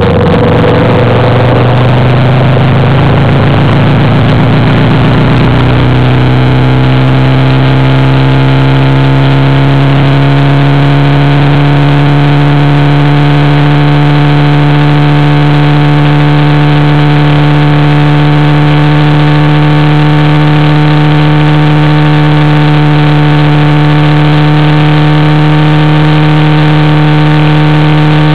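Motorcycle engine running at a steady cruising speed, its pitch rising a little over the first several seconds and then holding even. Rushing wind and road noise mixes in and fades about five seconds in.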